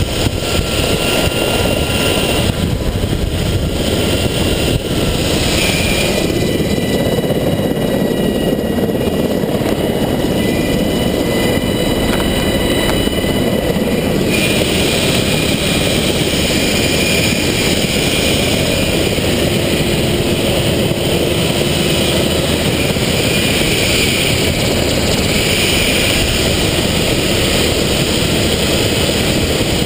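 Turbine helicopter's engines and main rotor running steadily at close range, with a thin high whine over the dense mechanical noise.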